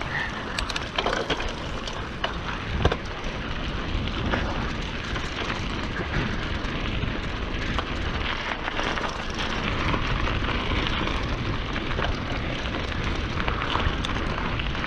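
Mountain bike rolling over a rough dirt trail: a steady rushing noise from tyres on dirt, with many scattered crackles, clicks and knocks from stones and twigs under the wheels.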